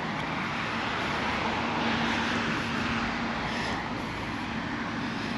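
Steady background road traffic noise, with a faint low hum about two to five seconds in.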